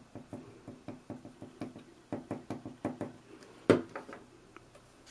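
Quick light taps as the nozzle of a plastic glue bottle dabs liquid glue onto a small piece of cardstock on a tabletop, about four or five a second, with one louder knock about three and a half seconds in.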